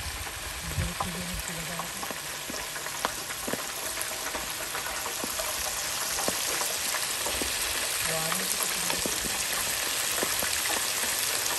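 Squid deep-frying in hot oil in the basket of a stainless electric deep fryer: a steady bubbling sizzle full of small crackles, growing a little louder over the span.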